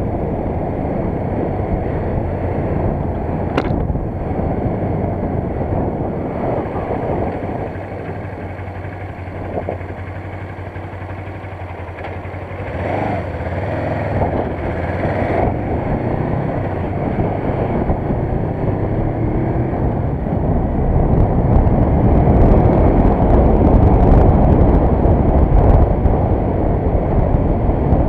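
Suzuki GS500 motorcycle, an air-cooled parallel twin, running on the road with wind and road noise. The sound grows louder over the last third.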